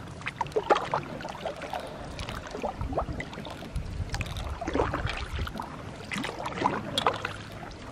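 Kayak paddle strokes in lake water: irregular splashes and drips as the blade dips and lifts out.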